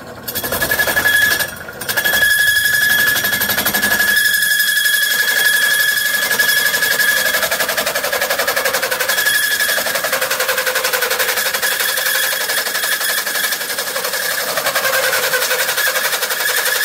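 Hole saw in a cheap benchtop drill press cutting through a mild-steel frame rail, making a horrific, steady high-pitched screech that briefly drops out about a second and a half in. The saw is turning at about 760 RPM, still far faster than recommended for mild steel.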